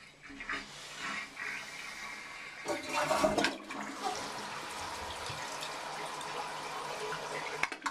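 Toilet flushing just after being unclogged with a plunger: a louder rush of water about three seconds in, then steady running water as it drains and refills. The free flow is the sign that the clog is cleared.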